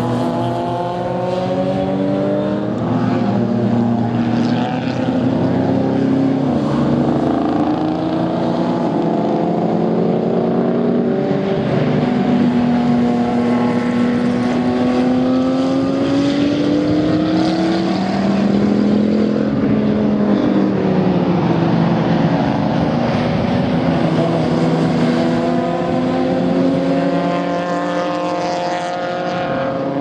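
Several racing car engines at once on a circuit, their pitch climbing and dropping in overlapping sweeps as the cars accelerate, shift gear and brake through the corners. A Porsche 911 race car is passing at the start, and a BMW 3 Series race coupé comes through near the end.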